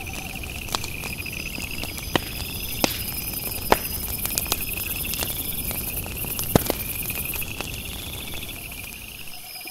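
Night insects chirping in steady pulsing trills, with sharp pops and crackles from a campfire scattered through; the loudest pops come about a third and two-thirds of the way in.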